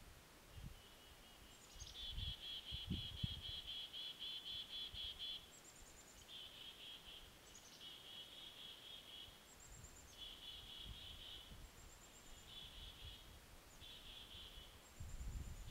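A small songbird singing a rapid trill over and over, about six songs. Each trill opens with a brief high, falling note, and the first runs longest, about three seconds. A few soft low thumps come in the first few seconds.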